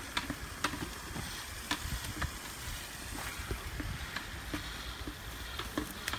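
Irregular light clicks and crackles from a roll of trellis line being handled and paid out, over a steady low rumble of wind on the microphone.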